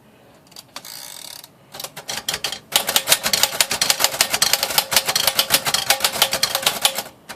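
A 1935 Royal Model O manual typewriter being typed on: a few scattered key strikes, then a fast, steady run of typebars clacking against the platen for about four seconds, stopping just before the end.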